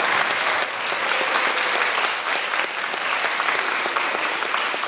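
Congregation applauding, many hands clapping at once in a steady, loud ovation.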